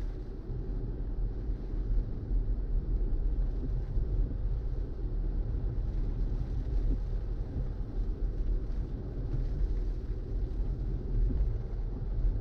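Steady low rumble of a car's road and cabin noise, with no separate events standing out.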